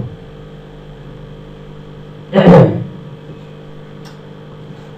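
Steady electrical hum of the recording room, several even tones with no rhythm. About halfway through comes one short, loud voice sound, such as a cough or a brief syllable.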